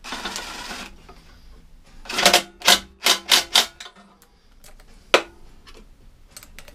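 A cordless drill-driver whirs for about a second, turning a socket on an engine bolt. About two seconds in come five loud, quick metallic clacks, and a single sharp click follows later.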